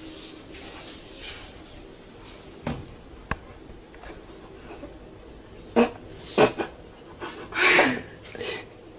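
A cat washing itself, licking its paw, with two faint clicks; then several short, loud noises in the last three seconds.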